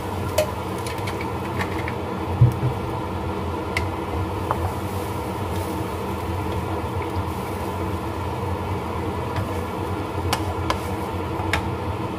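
Steady mechanical hum, like a kitchen fan, under a wooden spatula stirring a thin spice broth in a frying pan, with a few light knocks of the spatula against the pan, the sharpest about two and a half seconds in.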